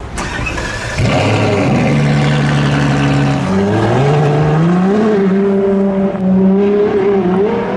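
Ferrari 488 Spider's twin-turbo V8 running under load. Its note comes in loud about a second in, rises in steps, climbs again in the middle, then holds a fairly steady pitch with a short dip near the end.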